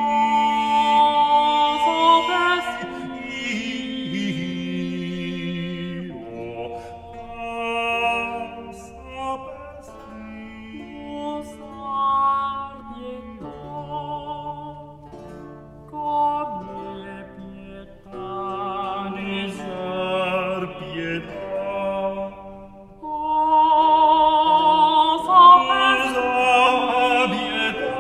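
Tenor and bass voices singing an early-Baroque Italian madrigal duet with continuo accompaniment, the two lines moving against each other with vibrato. The music drops quieter through the middle and swells louder near the end.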